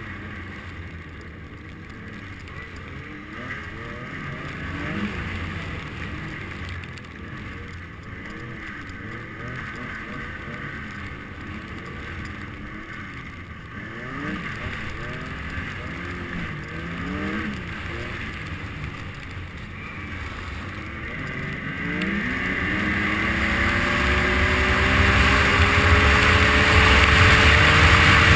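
Snowmobile engine revving up and down in pitch, then accelerating hard about three-quarters of the way through, its pitch climbing steadily as it gets louder, with rushing wind noise rising alongside.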